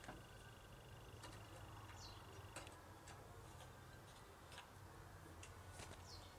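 Near silence with scattered faint clicks and light knocks, about one a second, two short high squeaks that fall in pitch, and a faint steady low hum.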